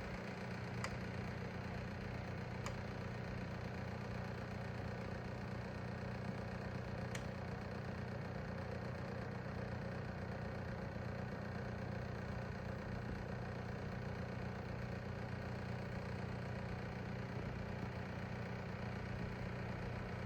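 Mitsubishi EHV-250-JT dehumidifier running with a steady low hum and a few faint clicks, the abnormal running noise (異音) the unit makes in operation.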